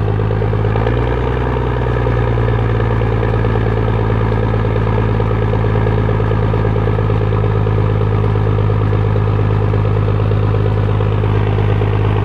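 Ford 700 truck engine idling steadily through a straight, unmuffled exhaust.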